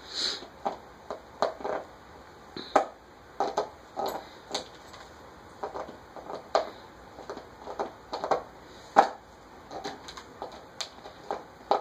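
A puppy chewing on an empty plastic bottle, gnawing at the neck and cap to get the top off: irregular crackling and clicking of the plastic, a few times a second, with the loudest crack about nine seconds in.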